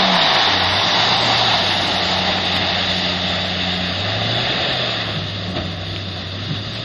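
Pickup truck engine running and revving as the truck drives and slides across snow-covered lake ice, under a steady loud hiss. The engine pitch rises then drops just after the start, rises again about four seconds in, and the sound slowly fades toward the end as the truck moves away.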